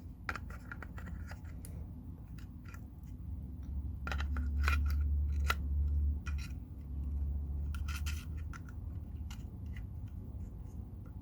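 Irregular small plastic clicks and scrapes as a wireless mouse is handled and its battery fitted into the compartment, with a low rumble of handling noise for a few seconds in the middle.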